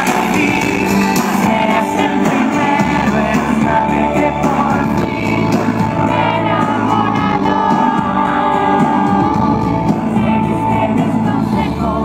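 Pop boy band singing live over amplified backing music through a PA during a soundcheck.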